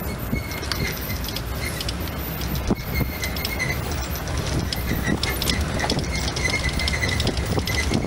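Open safari jeep driving over a bumpy dirt forest track: a steady low engine and road rumble, with frequent rattles and knocks from the rough ride.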